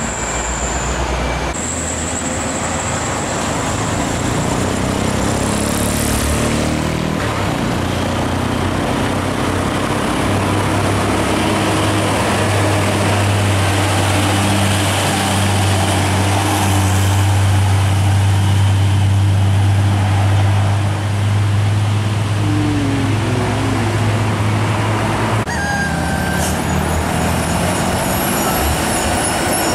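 Heavy diesel trucks driving past one after another, engines running under load. For much of the time a loaded Hino 500 cargo truck's engine gives a loud, steady low drone.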